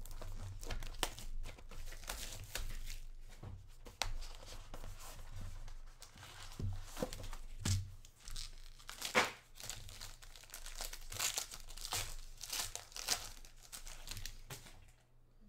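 Hands tearing and crinkling packaging: the cardboard of a Panini Gold Standard trading-card box being opened and a gold foil card pack being ripped open, with irregular rips, rustles and a few light knocks.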